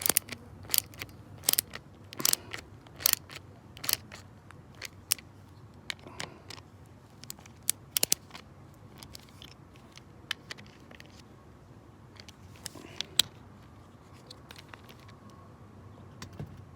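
A series of sharp mechanical clicks, about one every three-quarters of a second at first, then sparser and fainter after about five seconds, with one loud click just after thirteen seconds.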